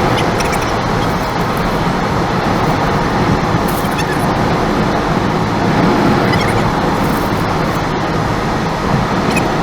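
Steady road noise of a car driving, the rumble of tyres and engine heard without a break.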